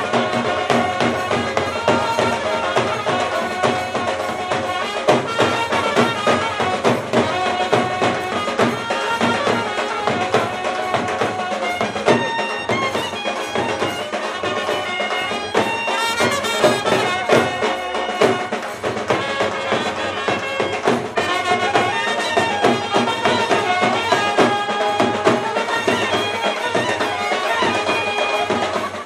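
A brass band playing a Himachali folk tune: a trumpet carries the melody over a dhol and snare drum beat.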